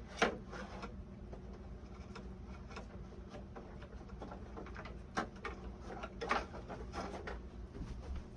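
Scattered light clicks and knocks of hands working small parts in the tail of a model airplane, one sharper knock near the start and a cluster of clicks toward the end, over a low steady hum.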